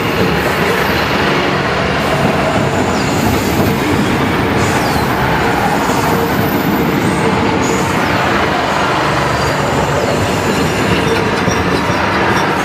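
State Railway of Thailand passenger coaches rolling past close by: a loud, steady rumble of wheels on rails, with a few brief high wheel squeals.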